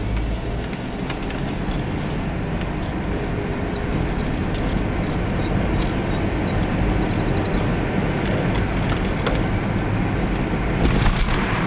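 Steady engine and tyre road noise inside a moving car's cabin as it drives along at low speed.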